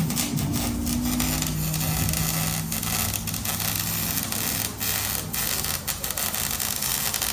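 Steady mechanical hum with scattered clicks and knocks, typical of work going on in a shop.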